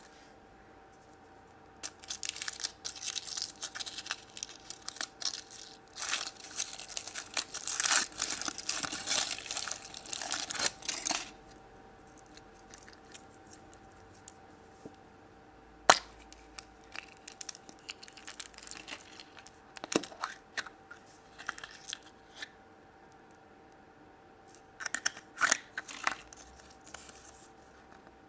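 Foil wrapper of a chocolate surprise egg crinkling and tearing as it is unwrapped, in dense crackly bursts, then a single sharp click and scattered small handling clicks, with more crinkling near the end.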